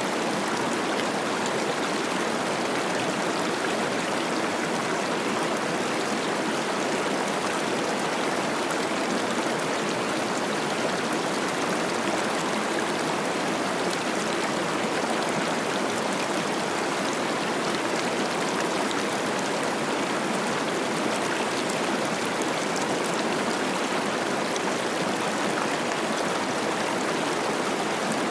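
Cache la Poudre River running high with spring snowmelt, its water rushing and babbling over rocks in a steady, even wash of sound.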